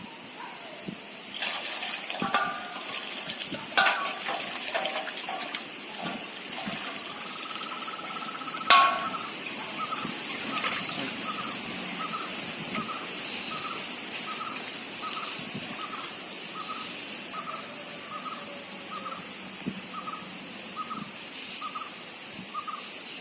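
Water pouring and splashing as raw chicken pieces are washed, with a few knocks and clatters in the first several seconds. Through the second half a short, high chirp repeats about one and a half times a second.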